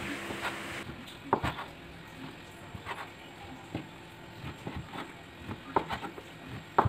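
Chef's knife cutting through a block of tempeh onto a wooden cutting board: a series of irregularly spaced knocks as the blade strikes the board, the loudest near the end.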